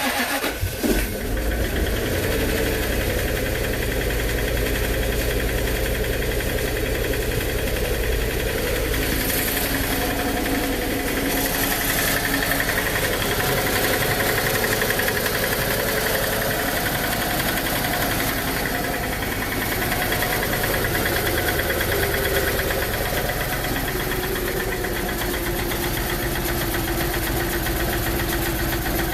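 Car engine running steadily with a horrible-sounding noise that the owner cannot diagnose, a fault that keeps coming back after repairs.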